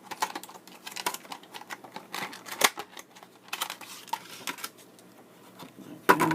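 Utility knife slicing open plastic retail packaging: an irregular run of clicks, scrapes and crackles, sharpest about two and a half seconds in and again just before the end.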